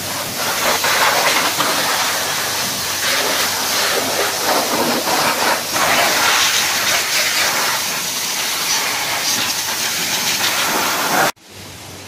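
Car wash spray wand jetting into a car's engine bay, a loud steady hiss that cuts off abruptly near the end.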